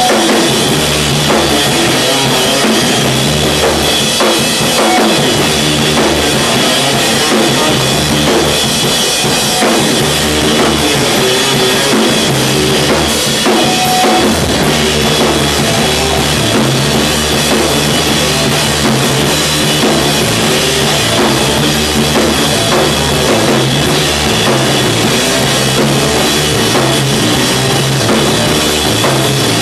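A post-hardcore rock band plays live with electric guitars, bass and a drum kit: a loud, steady passage of drums and repeating bass notes with no break.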